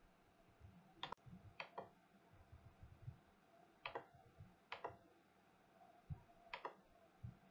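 Near silence with about six faint, sharp clicks at uneven intervals, two of them close together, over quiet room tone and a few soft low thumps.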